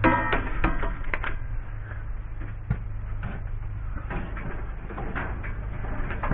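Scattered knocks and clicks of hands handling tools and wire, over a steady low hum.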